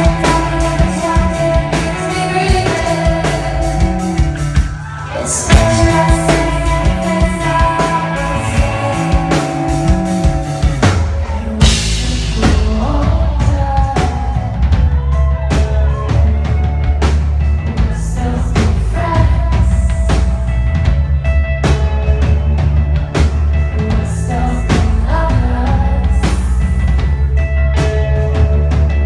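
Live rock band playing: electric guitars, bass guitar, drum kit and a woman's lead vocal, heard from the audience. About twelve seconds in, the band comes in heavier, with a much fuller bass and drums.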